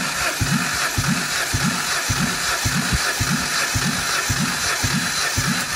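Jeep ECN 2.0-litre four-cylinder petrol engine being cranked on its starter motor for a compression test of the third cylinder. The starter whirs steadily, with an even, heavy pulse about twice a second. As the engine turns over, that cylinder builds to 12 kg/cm², the same as the others.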